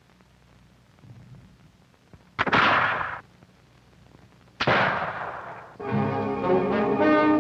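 Two loud gunshots from old firearms on a film soundtrack, about two seconds apart: the first cut off short, the second dying away. Music begins about six seconds in.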